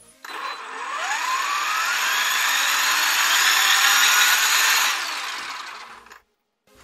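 Traxxas X-Maxx electric motor driving its dry-running open pinion gears and drivetrain with the wheels spinning freely: a whine that climbs in pitch for about four seconds as it spins up, then fades and stops near the end as the wheels wind down.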